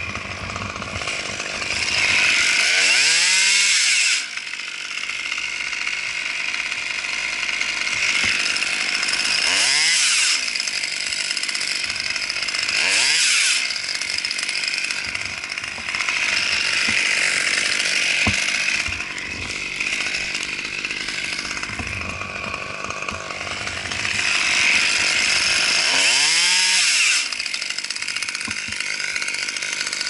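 Husqvarna T540 XP two-stroke top-handle chainsaw running, throttled up about five times for a second to three seconds each while cutting pine limbs, and dropping back to idle in between.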